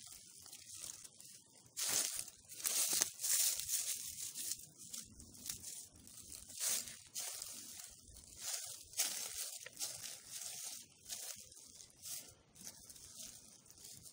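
A knife cutting hodan (eastern borage) plants at the base, with the tearing and rustling of their leaves and of dry fallen leaves around them, in a string of short, irregular rustles that get louder about two seconds in.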